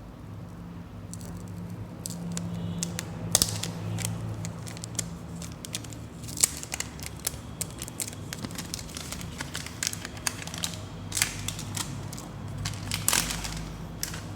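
Plastic packaging and tape being crinkled and torn as a parcel is opened, with many sharp crackles and clicks, over a low steady hum.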